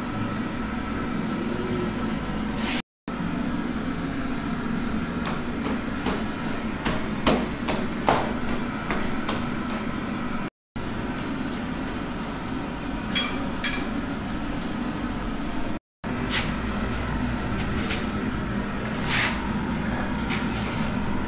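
Workshop background noise: a steady hum and rumble with a few sharp knocks and taps, the loudest two close together about seven and eight seconds in. It drops out completely for a moment three times.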